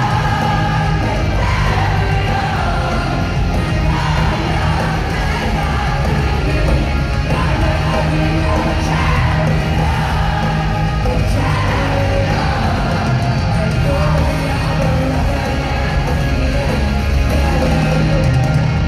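Live rock band playing loud, with drums, guitars and sung vocals, and the arena crowd yelling and singing along.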